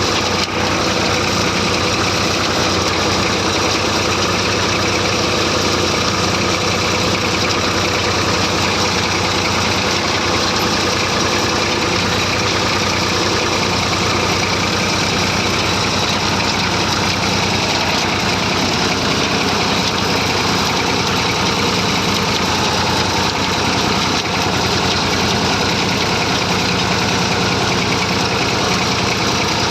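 Massey Ferguson 35 tractor engine running steadily.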